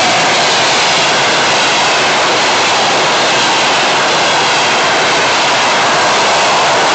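Passenger train coaches passing close at speed: a steady, loud rush of wheels on rail.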